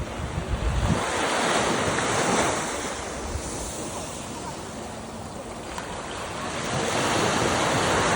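Sea waves surging and washing in, two swells of noise, one peaking about two seconds in and another near the end. Wind buffets the microphone with low rumbles in the first second.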